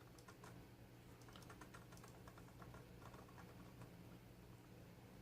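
Faint, irregular little clicks and crackles as a soldering iron melts solder and flux into a battery connector's solder cup, over a low steady hum.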